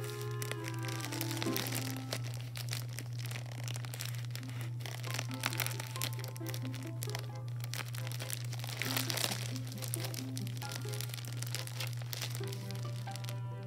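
A clear plastic zip bag full of small blue beads crinkling and crunching as a hand squeezes and kneads it, the beads shifting inside, with background music.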